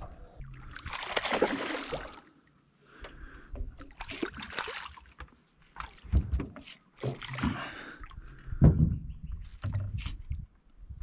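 Irregular bursts of splashing and low knocks in a small boat while a freshly landed barramundi is handled and unhooked, the biggest splash about a second in.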